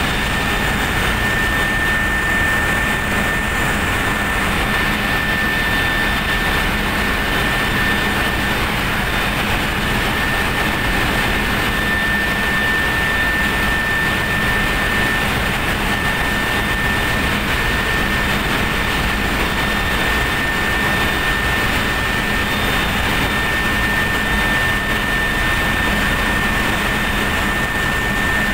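Steady, loud machinery noise of a ship's engine room: a continuous rushing roar with a steady high whine over it.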